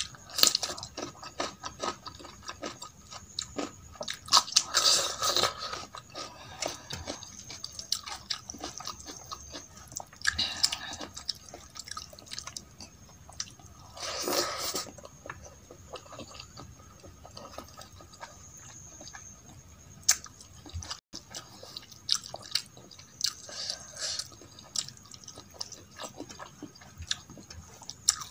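Close-miked eating: wet chewing and mouth clicks over mouthfuls of dal, rice and fried karela and potato, mixed with the squish of fingers working rice on a steel plate. The sounds are loudest about five, ten and fourteen seconds in.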